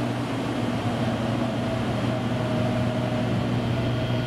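XPOWER X-12 12-inch ventilator fan running after being turned down from maximum toward minimum airflow on its variable speed control: a steady rush of air over a low motor hum. Its pitch drops a little at the start, then holds steady.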